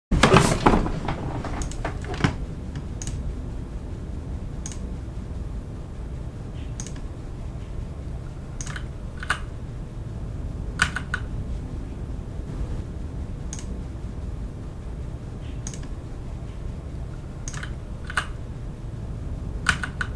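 Typing on a computer keyboard: a quick run of keystrokes in the first two seconds, then single key clicks every second or two, over a steady low background noise.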